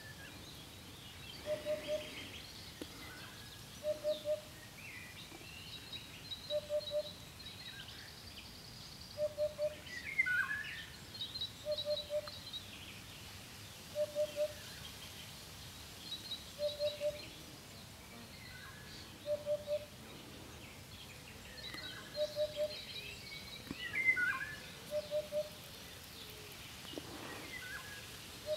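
Eurasian hoopoe singing its low triple "oop-oop-oop", the phrase repeated about every two and a half seconds. Other birds call faintly in the background.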